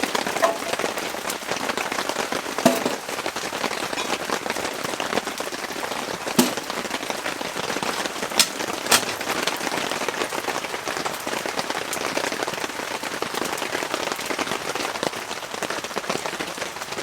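Heavy rain falling steadily on tent fabric, an even hiss with scattered drop impacts. A few sharp knocks and clicks stand out over it.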